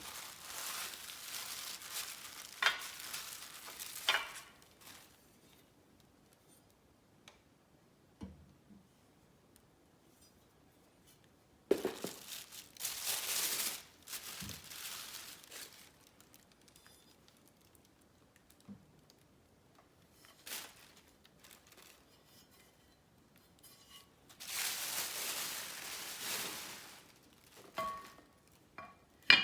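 Unboxing packaging being handled: three spells of crinkling and rustling of wrapping, with a few sharp clicks and knocks in between and quiet gaps.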